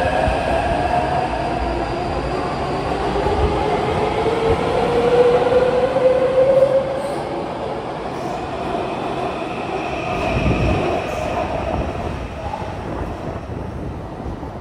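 Taipei Metro C371 electric train pulling out of an underground station. Its traction motors whine, rising in pitch as it accelerates over the wheel and rail noise. The noise is loudest about six seconds in, then fades as the train runs off into the tunnel.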